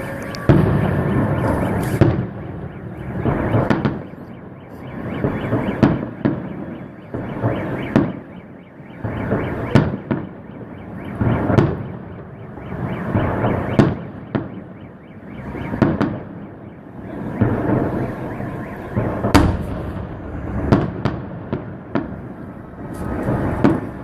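Salute fireworks: shells bursting with a deep boom about every two seconds, each boom echoing away, with fainter crackle between the bursts.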